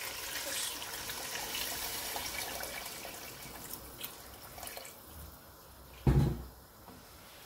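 Water poured from a steel jug into a steel cooking pot of browned chicken feet in masala, a steady splashing pour for about the first three and a half seconds that then dies away. A single loud thump follows about six seconds in.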